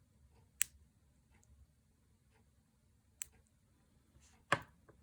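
Three sharp clicks of cutters snipping the ends of beading-wire strands, spread a second or more apart, the last one the heaviest.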